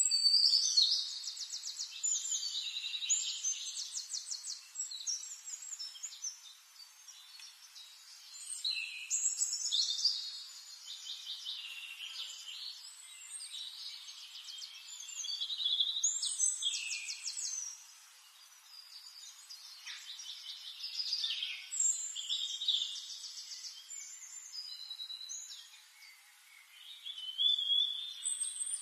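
A small songbird singing phrase after phrase of fast, high trills and chirps, with pauses of a few seconds between the phrases.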